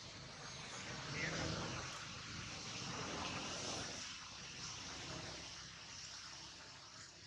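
A distant engine that grows louder about a second in and slowly fades, over a steady outdoor hiss.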